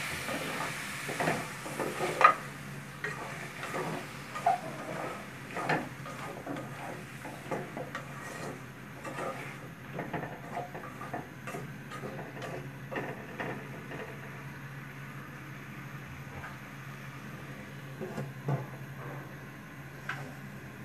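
Spatula scraping and knocking against a metal pot while stirring potato and aubergine chunks frying in spiced oil, many irregular clicks and scrapes, busiest in the first few seconds, over a faint sizzle.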